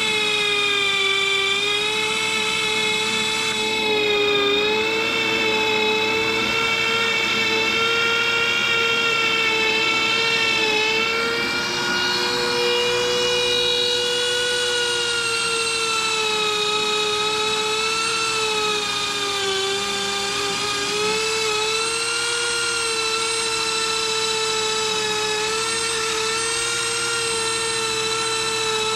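Dremel rotary tool on a flex shaft running at high speed, a steady whine. Its pitch sags briefly every few seconds as the bit bears on the rusted iron of a relic carbine, grinding off loose rust and crust.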